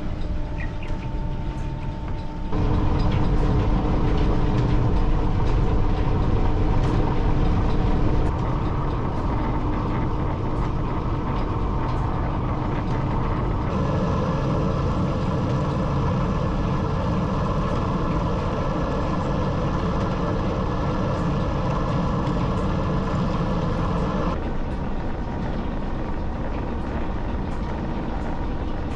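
Belt-driven lathe and overhead lineshaft running while the bore of a bush is drilled and then bored: a steady mechanical rumble with a faint steady whine. Its level and tone shift abruptly a few times.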